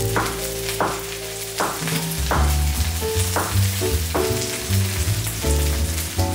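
Oysters frying in oil in a pan, with a steady sizzle. Background music with held notes and a bass line plays under it.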